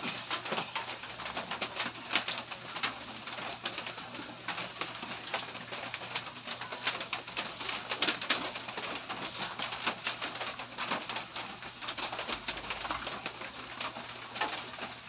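Close-miked eating sounds: wet chewing and lip smacking of pancit canton noodles, a dense run of irregular mouth clicks.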